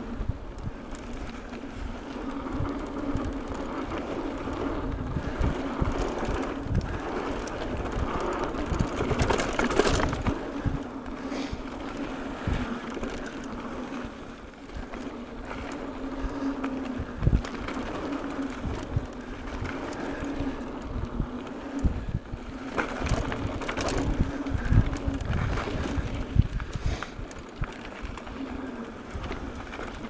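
Mountain bike riding fast down a dirt trail: tyres rolling with a steady hum, wind buffeting the microphone, and the frame and parts knocking and rattling over bumps, with a few louder jolts.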